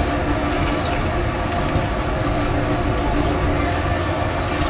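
Churros frying in a wide wok of hot oil: a steady sizzle and bubbling over a continuous low rumble.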